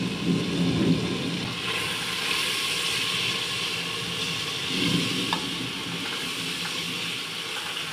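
Onion paste and ground spices sizzling in hot oil in a pressure cooker pan while a spatula stirs them, the sizzle swelling from about two seconds in.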